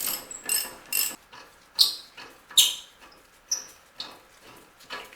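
Ratchet clicking in short strokes as a loosened brake caliper bracket bolt is wound out, then several separate sharp metallic clinks.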